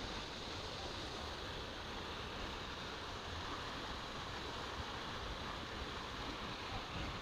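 Steady, even rushing noise with a low rumble underneath, unchanging throughout.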